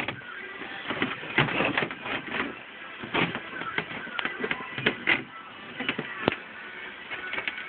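Irregular clicks, taps and knocks of handling, as the phone is moved over the boat's plastic hull and a hand touches it.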